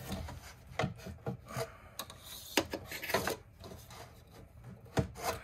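Thick rubber-jacketed 6-gauge power cable being pushed and fed by hand through a cabinet opening, rubbing and scraping along the edges, with a string of irregular knocks and taps as it catches and shifts.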